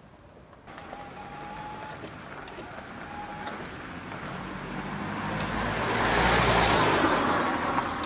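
A small car, the one driven by a washing machine motor, approaching and passing: road and tyre noise with a low hum swells to a peak about six to seven seconds in, then eases. There is little engine sound.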